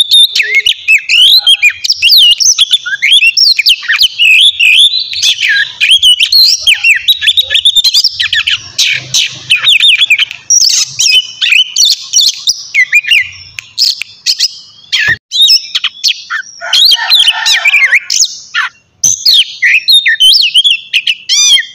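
Oriental magpie-robin (kacer) singing a fast, continuous, varied song of whistles and chirps, with a harsher rasping passage about 17 seconds in.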